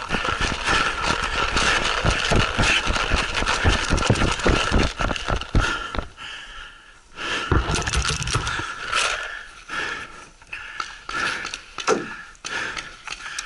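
Rattling and knocking of a paintball player's gear and camera mount as he runs, dense for the first several seconds. After that come a dull thud and scattered sharp clicks as he settles behind cover.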